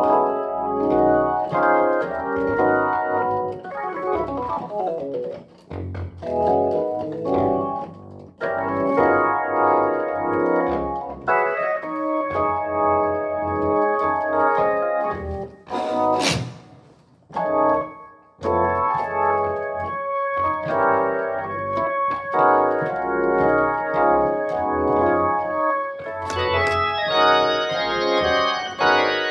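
Hammond XK1 combo organ playing sustained chords over a bass line from a Studiologic MP-117 MIDI bass pedal. A sliding run comes about four seconds in. There is a brief pause with a short hiss around the middle. Brighter high tones come in near the end.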